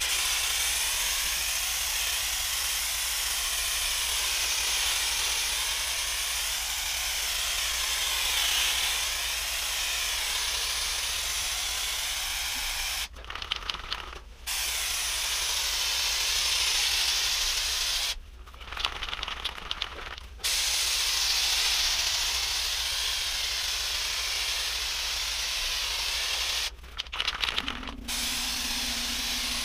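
Aerosol wall-texture spray can hissing in long bursts as texture is sprayed onto a drywall patch. Three times the spraying stops briefly for a quick rattling as the can is shaken.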